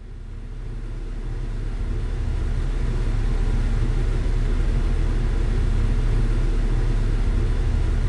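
A steady low rumble that fades in over the first two seconds or so and then holds even.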